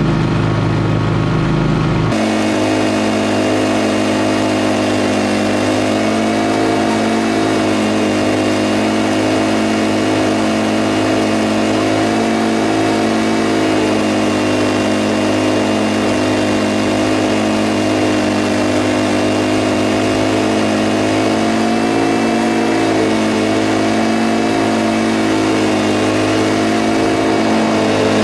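Scag V-Ride stand-on commercial mower running steadily at mowing speed with its blades engaged, the engine note even throughout; the sound changes character about two seconds in.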